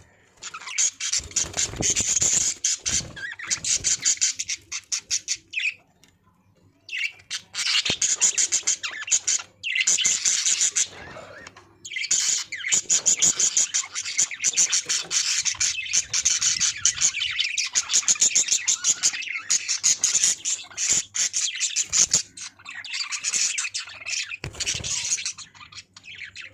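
Budgerigars chirping and chattering in fast, busy bouts of high-pitched calls, with short lulls about six and eleven seconds in.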